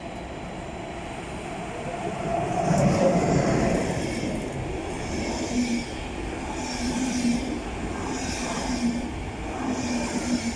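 A train running through the station. A noise repeats about every second and a half, fitting wheels passing over rail joints.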